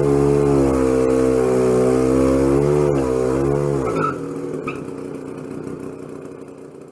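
Vintage minibike's small single-cylinder engine running hard at high revs, its pitch wavering slightly, until the throttle drops about four seconds in. The sound then dies away.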